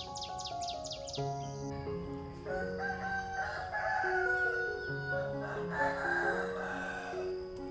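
A rooster crowing over soft background music of held notes.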